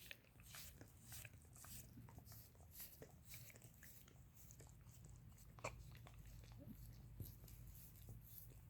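A dog licking a person's feet up close: faint, repeated wet licking and smacking clicks, with one louder smack about two-thirds of the way through.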